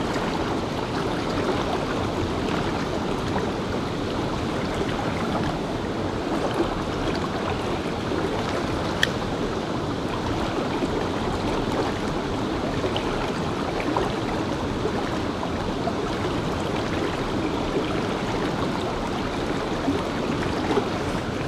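Mountain river running steadily, with a single sharp click about nine seconds in.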